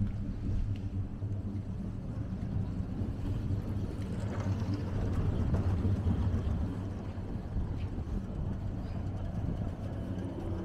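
Gondola lift cabin riding along its overhead cable, with a steady low mechanical hum and rumble.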